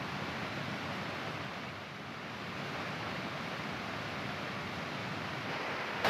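Steady rush of a fast-flowing mountain stream, an even noise with no breaks.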